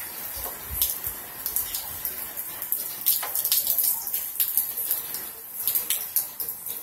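Storm rain falling and splashing close by, with many irregular sharp drips and splatters over a steady hiss. About half a second in, a gust of wind buffets the microphone.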